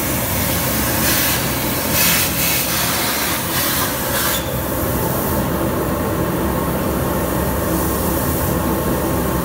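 Plasma torch of a CNC plasma cutting table cutting 8 mm mild steel at 130 amps with O2 and air, a loud steady hiss that drops away about four seconds in as the arc goes off. A lower steady machine hum carries on after it.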